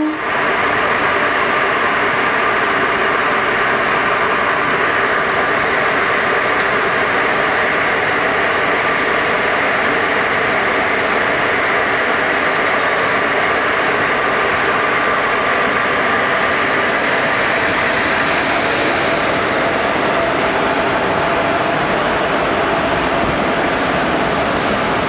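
WCAM-2 electric locomotive close by, starting to move its train, its machinery giving off a loud, steady whine made of several held tones over a dense hum. One high tone slides a little lower in the second half.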